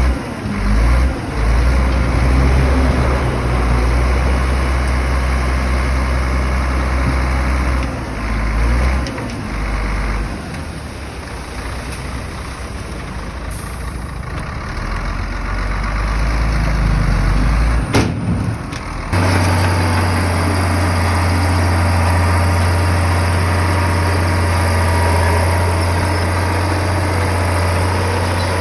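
Diesel engines of heavy earthmoving machinery (excavator and bulldozer) running under varying load. Near the end the sound changes abruptly to a steady, deep engine hum.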